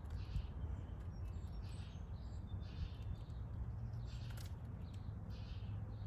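European starlings giving harsh, rasping calls, short notes about twice a second with a few thin whistles mixed in, over a steady low rumble.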